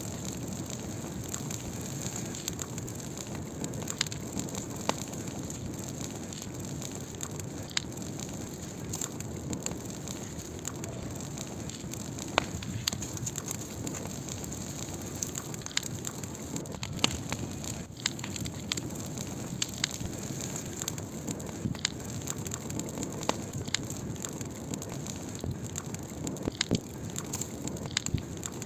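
Wood fire burning: a steady low rush of flame with irregular sharp crackles and pops of burning wood.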